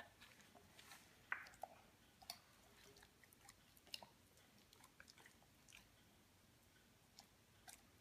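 Faint, irregular wet clicks and smacks of a Labrador retriever mouthing and chewing a cherry tomato, with the sharpest clicks about a second in and again about four seconds in.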